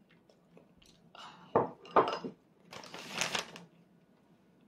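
Tableware at a meal: two sharp knocks of dishes or utensils close together, about a second and a half in, followed by about a second of softer noise.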